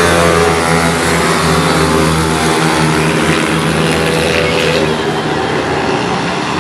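A pack of stock pit bikes racing, their small single-cylinder four-stroke engines running at high revs as several overlapping engine notes. The sound eases slightly near the end.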